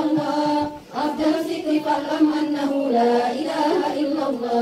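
A group of women's voices chanting an Islamic prayer together in unison, on long held notes, with a brief pause for breath about a second in.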